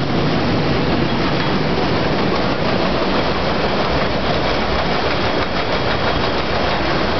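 Steady, loud mechanical din of an industrial walking beam furnace in operation, a dense mix without a clear rhythm or single standout event.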